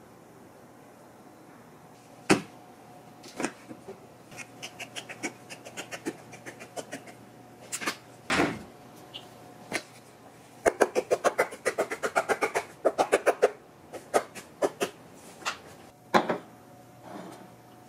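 Kitchen handling sounds: scattered knocks and scrapes of chopsticks against a plastic tray and frying pan, then a shaker can shaken over the pan in a quick run of taps, about eight a second, for about three seconds. A glass is set down on the stone counter with a sharp knock near the end.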